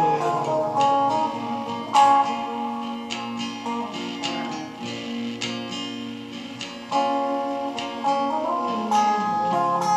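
Acoustic and electric guitar playing an instrumental passage together: strummed chords under held, ringing notes, with hard strums about two seconds in and again near seven seconds.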